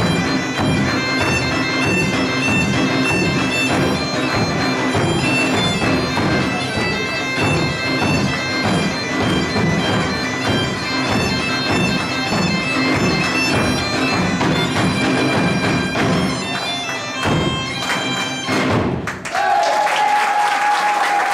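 Gaita de foles (Portuguese bagpipe) playing a tune over its steady drone, with a bass drum and a snare drum beating along. The piece ends about nineteen seconds in, and applause breaks out.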